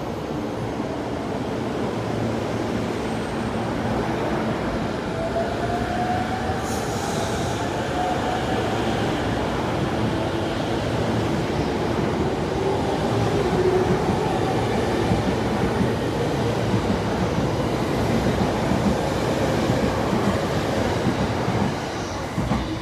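JR E231-500 series electric commuter train pulling out and accelerating past: a rumble of wheels on rail under a whine from its traction motors that rises slowly in pitch as it gathers speed. The sound falls away near the end as the last car clears.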